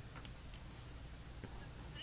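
Quiet room tone: a steady low hum with two or three faint small clicks.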